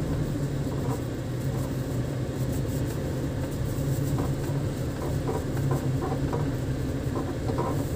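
Motor vehicle running steadily with a low hum, with a few light knocks or rattles in the second half.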